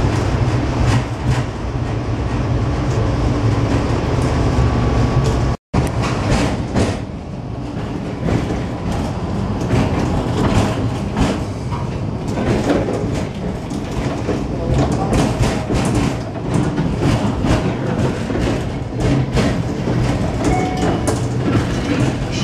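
Tram riding along street track, heard from inside the car: a steady low running rumble of wheels and motors. After a brief dropout about six seconds in, the ride turns rougher, with many short wheel clicks and knocks as it crosses rail joints and switches.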